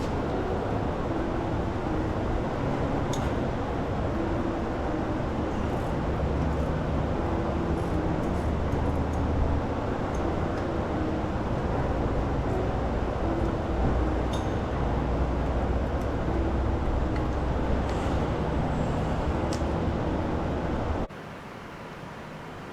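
Steady rumbling background noise with a few faint pitched hums that come and go and occasional light clicks. It cuts off suddenly near the end.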